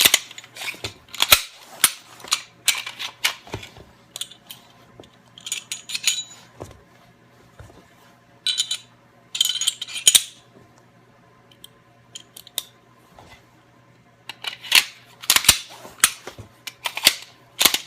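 Glock 19 pistol being quickly field-stripped and reassembled: bursts of sharp metallic clicks, clacks and rattles as the slide, spring, barrel and magazine are worked, with short pauses between groups.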